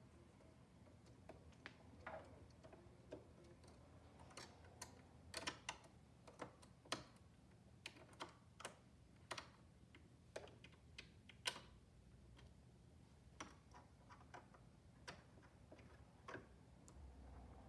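Light clicks and taps of small metal and plastic parts being handled at a Janome 2212 sewing machine's needle and bobbin area, at irregular intervals. The sharpest click comes a little past the middle.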